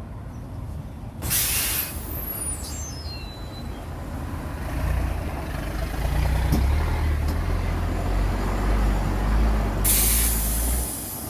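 Two short blasts of hissing air, about a second in and near the end, with a machine running with a low, steady rumble from about five seconds in.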